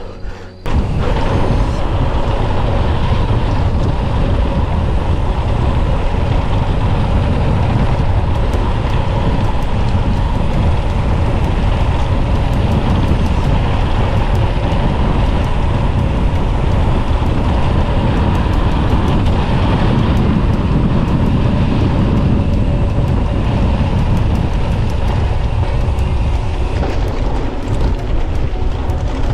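Steady wind rush and tyre rolling noise on the camera microphone of a moving mountain bike, starting suddenly under a second in.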